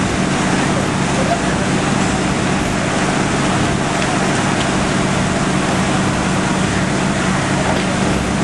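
Fire engine's engine running steadily beside the fire, with a steady rushing hiss over it.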